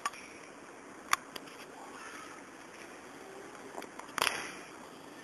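Steady outdoor background noise, broken by a few short sharp clicks at irregular moments, the loudest cluster near the end.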